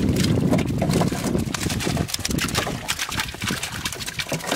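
Water splashing and many small irregular clicks and spatters as hands sort a catch of live prawns out of a wet net in shallow water, busiest in the first two seconds.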